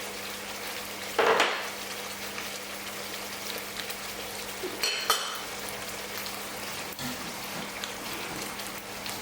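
Curry sauce sizzling in a pan on the hob with garam masala and cumin just added, a utensil scraping through it about a second in and a metal clink against the pan about five seconds in.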